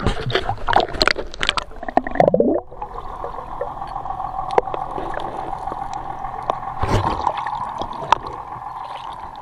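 Water splashing and sloshing around a camera held at the sea surface; about two and a half seconds in, the camera goes underwater and the sound turns to a steady muffled underwater hum with a constant tone.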